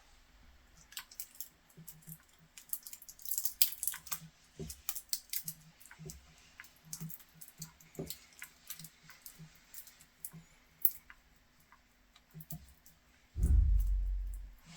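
Small clicks and crackles of electrical tape being handled and wrapped around a temporarily joined wire to insulate it, with a louder dull knock near the end.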